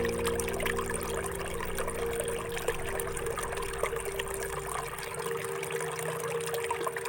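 Water trickling in a thin, steady stream, as when water is poured for propagating plant cuttings, with a few held background-music tones underneath that fade out in the second half.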